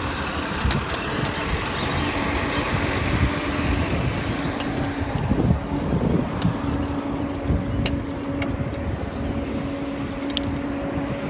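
Wind on the microphone and road rumble from a bicycle riding along a city street, with scattered clicks and rattles. A motor vehicle engine runs close by, and a steady low hum comes in about halfway through.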